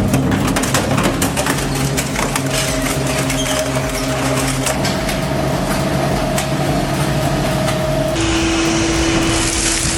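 A heavy shredding machine running steadily, with frequent cracks and crunches as material is broken up. A little past eight seconds in, the sound changes suddenly to a different machine's steady hum over a hiss.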